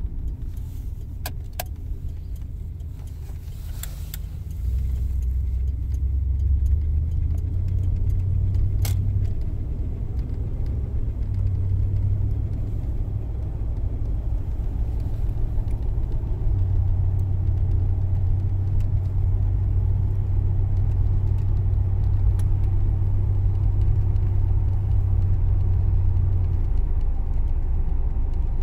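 1978 Cadillac Sedan deVille's engine and road noise heard from inside the cabin: a low hum that grows louder about five seconds in as the car pulls away, then settles into a steady drone at cruising speed. A few light clicks and rattles come in the first several seconds.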